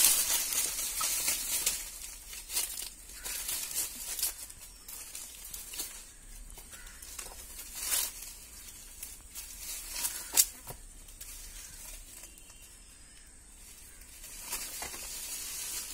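Dry fallen leaves rustling and crackling in scattered short crackles, stirred by a stick and a monitor lizard struggling in the leaf litter. It goes quieter for a few seconds near the end.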